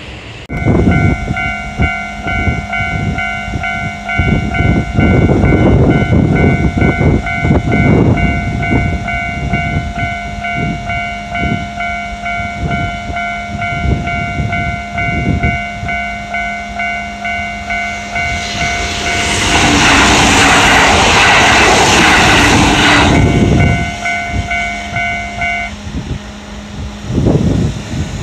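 Japanese railroad crossing's electronic warning bell ringing its rapid kan-kan while a train passes, wheels clacking over the rail joints. About two-thirds through, a louder rushing of a train going by close dominates for a few seconds. The bell stops near the end.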